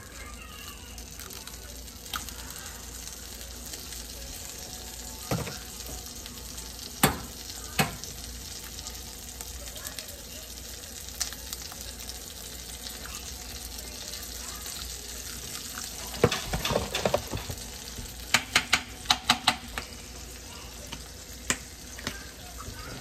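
Eggs frying in a nonstick skillet, a steady sizzle, broken by sharp taps and clicks: an egg cracked into the pan about seven seconds in, and a quick run of clicks near the end as a seasoning-salt shaker is handled.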